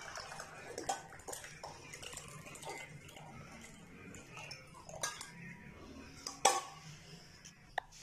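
Hot herbal tea poured through a steel mesh strainer into small glass cups, with light clinks of the strainer and glasses, two sharper clinks about five and six and a half seconds in.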